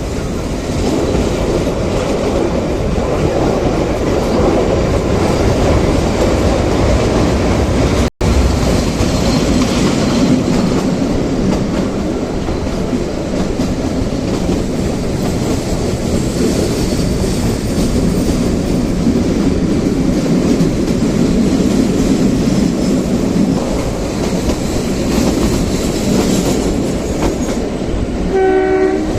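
Narrow-gauge Kalka–Shimla toy train running along the track: a steady rumble of wheels on rails. The sound cuts out for an instant about eight seconds in, and a brief pitched tone sounds near the end.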